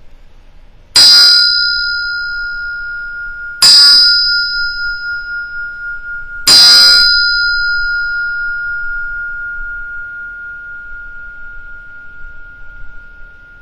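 Small brass hand bell rung three times a few seconds apart, each clear ring fading slowly, closing the meditation session.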